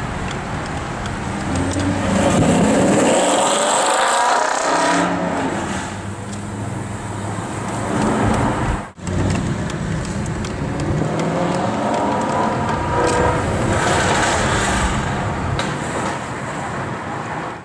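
Mercedes-Benz SLS AMG's 6.2-litre V8 with a Supersprint exhaust accelerating through the gears, its note rising and falling in two loud pulls, heard from a chasing car. A sudden break comes about halfway through.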